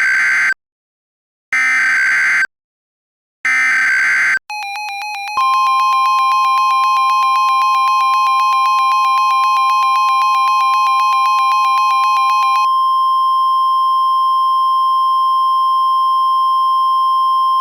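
Emergency Alert System tones: three short buzzing SAME header data bursts about a second apart, then a rapidly beeping alert tone. About a second later a steady alert tone joins it. The beeping stops about three-quarters of the way through, and the steady tone holds alone.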